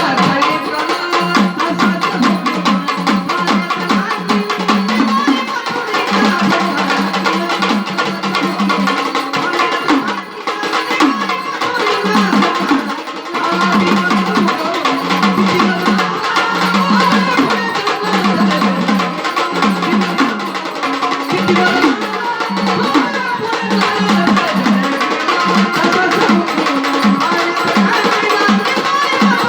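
Traditional Marathi gondhal music: rapid stick strokes on a sambal drum pair with an electronic organ carrying the melody, the drumming dropping out briefly about ten seconds in.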